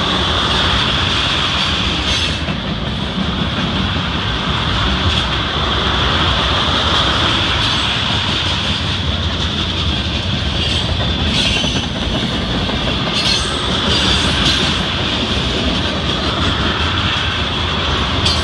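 BNSF freight train's tank cars and boxcars rolling past at close range: a steady rumble and clatter of steel wheels on rail, with a high squeal held throughout and a few sharper clanks about halfway through.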